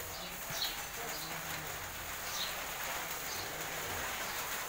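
Small birds chirping: a few short, falling chirps spaced a second or so apart over steady background noise.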